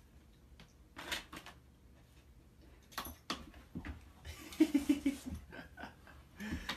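Dog pushing through a pet-door flap: a few single knocks, then a quick run of clicks and rattles as the flap swings and the dog steps through.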